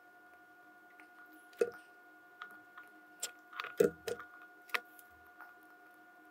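Small clicks and knocks as a Raspberry Pi Zero W board with its header pins and alligator clip is handled, flipped over and set down. The loudest cluster of knocks comes about four seconds in. A faint steady hum runs underneath.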